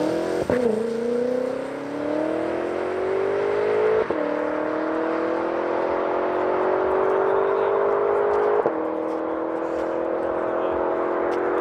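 BMW M6 Competition's twin-turbo V8 accelerating hard at full throttle, revs climbing through the gears. Three quick upshifts, each a sharp crack and a sudden drop in pitch: just after the start, about four seconds in, and about eight and a half seconds in. The pitch rises more slowly in each higher gear.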